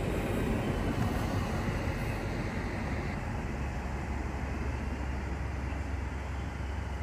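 A train running through the station: a steady low rumble with hiss, whose higher part thins out after about three seconds.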